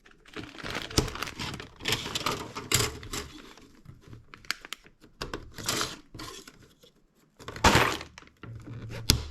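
Plastic building bricks clicking and knocking together as they are handled, with crinkling of a plastic parts bag; a longer rustle comes about three-quarters of the way through.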